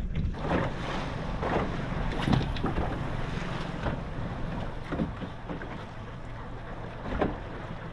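Wind buffeting the microphone aboard a small boat at sea, over a low rumble and the wash of water, with a few short knocks on the boat, the loudest near the end.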